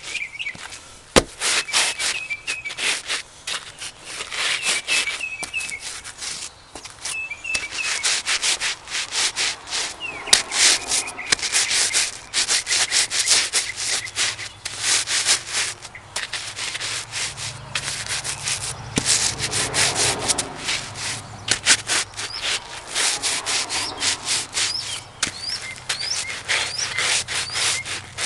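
Crackers crunching and crackling under the lugged rubber soles of Danner Mountain Light hiking boots, in a long run of stomps and grinding crushes with only brief pauses.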